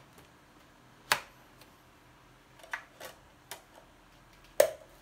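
Sharp plastic clicks and taps as a CD is handled out of its album packaging and pressed onto the spindle of a wall-mounted CD player. There are about five clicks, the loudest about a second in and near the end.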